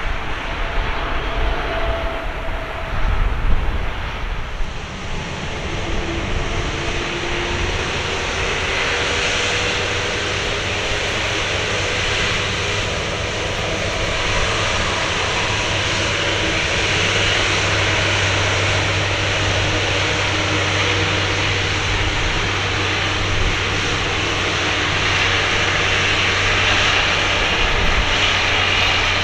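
Airbus A350-900's Rolls-Royce Trent XWB turbofans running at low taxi power as the airliner rolls past: a steady jet rumble and hiss with a faint wavering tone. It grows a little louder about six seconds in.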